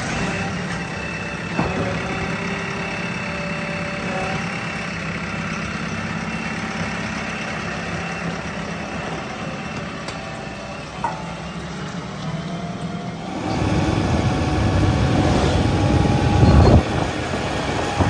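JCB 3DX backhoe loader's diesel engine idling steadily. About thirteen seconds in it runs louder and rougher as the machine drives, then eases off near the end.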